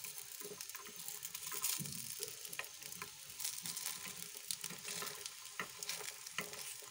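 Oil sizzling faintly in an appe pan as stuffed dough balls fry on low flame, with light clicks and scrapes of metal forks turning them in the pan's cups.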